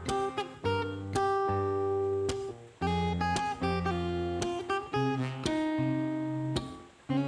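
Background music: acoustic guitar playing plucked notes and chords over low bass notes.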